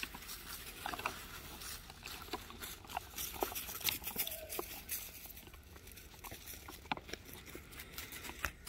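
Faint scuffling and pattering of Cane Corso puppies playing on the barn floor, with scattered light clicks and rustles and one short squeak about four and a half seconds in.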